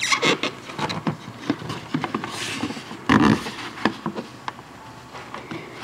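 Scattered clicks, taps and rattles of plastic trim pieces and push clips being handled and fitted, with one louder knock about three seconds in.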